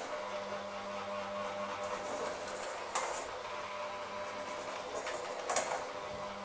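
Electric hand mixer running steadily, its beaters working a thick mixture in a stainless steel bowl, with two sharp clinks of the beaters against the bowl about three seconds and five and a half seconds in.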